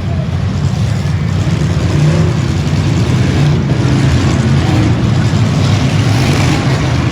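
Stock V8 demolition derby car engines running and revving, loud and steady.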